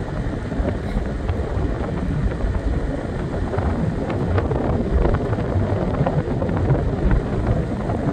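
Wind buffeting the microphone of a phone carried on a moving scooter: a steady, deep rushing rumble.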